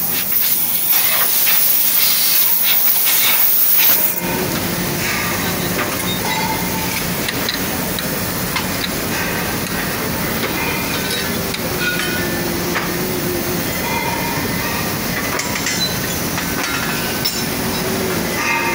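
Compressed air hissing loudly at a sand-moulding machine for about four seconds, then cutting off abruptly. After it, steady foundry machinery noise with occasional light metallic clinks.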